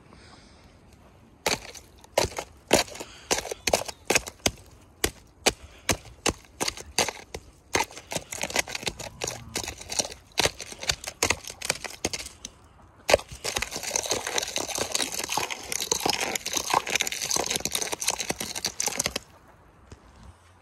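Ice in a rubber livestock water bowl being broken with a pole: a run of sharp, irregular knocks and cracks, a couple a second, then one hard strike and about six seconds of steady crunching and crackling of broken ice.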